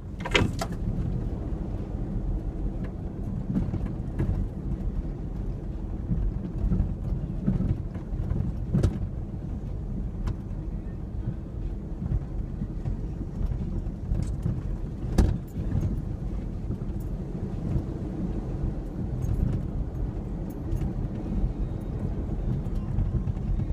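2003 Ford Ranger 4x4 pickup driving off-road: a steady low engine and drivetrain rumble, with a few sharp knocks and light rattles as it goes over rough ground.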